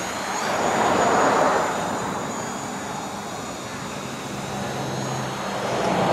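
Small DJI Mavic Pro quadcopter flying away, its propellers giving a thin high whine, with a broad rushing noise that swells about a second in and again near the end.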